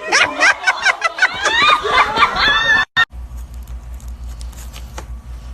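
People laughing and talking over one another in quick rhythmic bursts, cut off abruptly about three seconds in; then a low steady hum with a few faint ticks.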